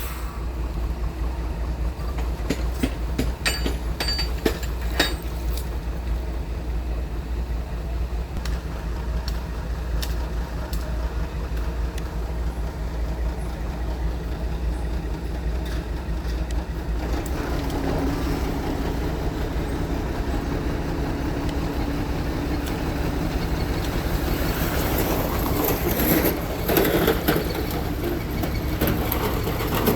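Bulldozer's diesel engine running steadily, with a quick run of metallic clanks a few seconds in and heavier working from about halfway.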